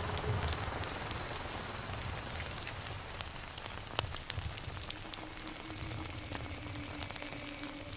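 Ambient soundscape of steady crackling hiss with scattered sharp clicks over an uneven low rumble; a faint held tone comes in about five seconds in.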